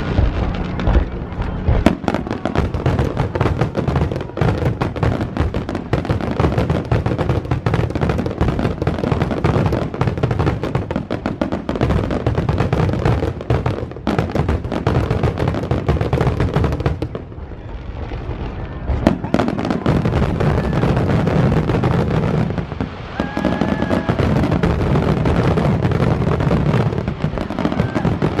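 Aerial fireworks bursting and crackling in rapid, overlapping succession, with a short lull about two-thirds of the way through.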